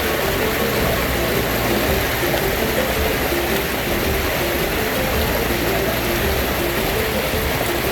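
Steady rush of river water flowing over rocks, a loud, even noise.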